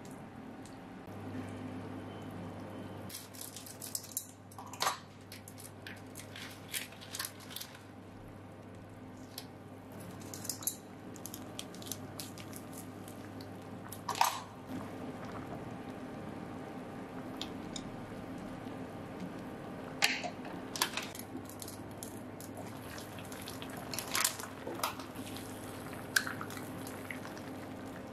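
Pot of noodle broth bubbling on the boil with a steady low hum underneath, broken by several sharp clicks and knocks.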